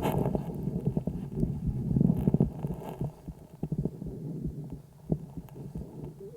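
Calf's lung sounds picked up through a homemade stethoscope microphone on the right side of the chest: breathing with many short clicks, loudest about two seconds in. This is the lung where ultrasound found a lesion.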